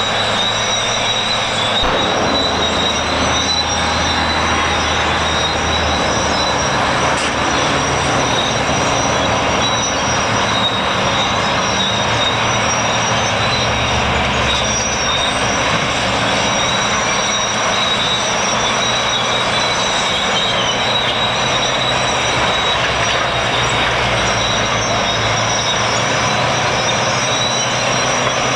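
Wabco 222G motorscraper's diesel engines working under load, the engine note shifting up and down several times over a dense mechanical clatter.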